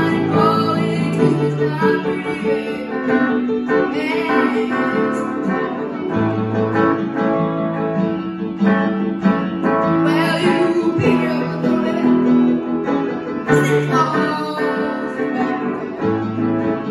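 Live guitar and electronic keyboard playing a Christmas song: strummed guitar chords over low keyboard notes that change every second or two.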